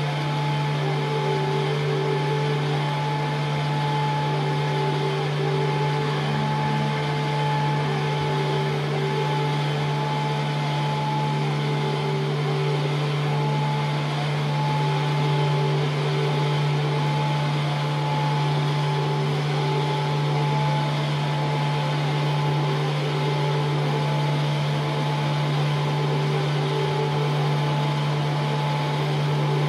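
Experimental drone music: a steady low droning tone held without a break, with higher sustained tones wavering in and out above it over a hissing, engine-like noise layer.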